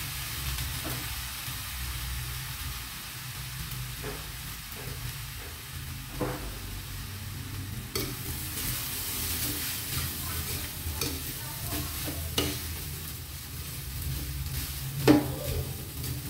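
Fried rice sizzling in a steel frying pan while a metal spatula stirs and scrapes it, with scattered sharp clinks of the spatula against the pan, the loudest near the end.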